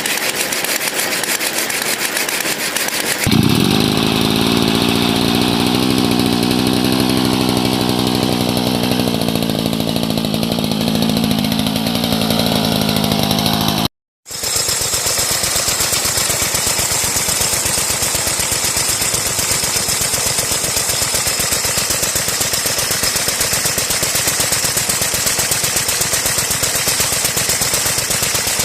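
Engine of an old, heavy 9-horsepower chainsaw running with a fast firing rhythm. The sound changes abruptly about three seconds in, cuts out for a moment about halfway, then runs on steadily.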